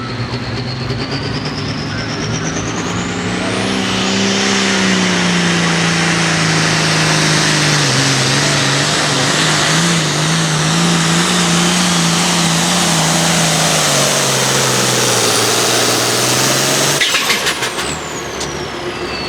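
International hot farm pulling tractor's turbocharged diesel engine running flat out down the track. A high turbo whistle climbs in pitch over the first few seconds, and the engine's pitch sags a little as it loads up. About three quarters through, the engine is shut off abruptly and the turbo whine winds down, falling in pitch.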